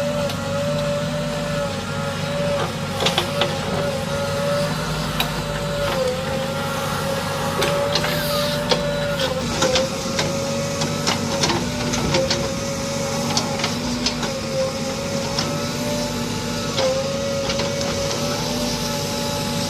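JCB 3DX backhoe loader's diesel engine running steadily under work, its hum dipping briefly in pitch every few seconds as it takes load. Scattered sharp clicks and knocks come through, mostly in the first half.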